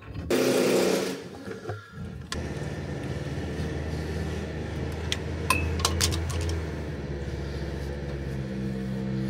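A short loud rush of noise, then a motor starts about two seconds in and runs with a steady low hum, with a few sharp clicks partway through.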